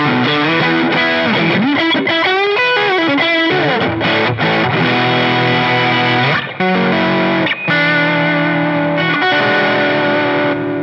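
1978 Tokai Springy Sound ST-42 Strat-style electric guitar played through an overdriven Fender Deluxe Reverb amp: a lead phrase with bent, wavering notes, then held notes and chords ringing out.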